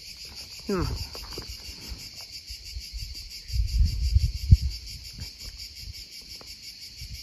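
Steady high shrilling of insects, pulsing evenly throughout. A few dull low thumps and rustles come about a second in and again around four seconds in, and these are the loudest sounds.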